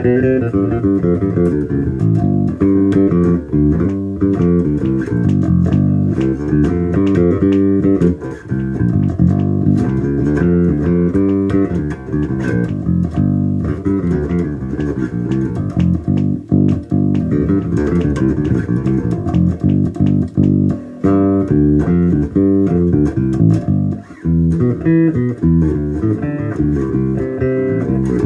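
Harley Benton B-450 electric bass guitar played as a continuous run of quick plucked notes, with an aggressive tone dialled in for cutting through two guitars: bass cut, low and high mids boosted, treble trimmed just enough to add zing.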